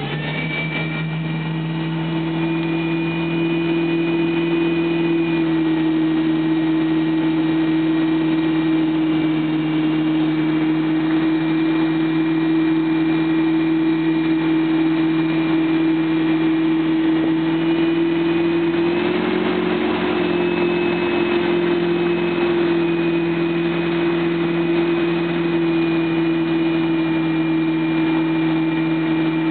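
Tow boat's inboard motorboat engine running steadily under load, a constant drone that builds over the first couple of seconds and rises slightly in pitch about two-thirds of the way through.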